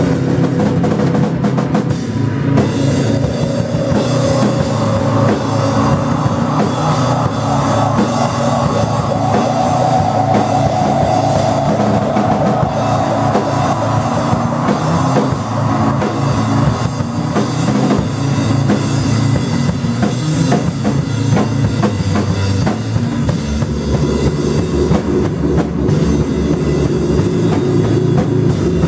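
A live rock band playing loud, with a drum kit hitting steadily over a dense, continuous wall of sustained instrument tones.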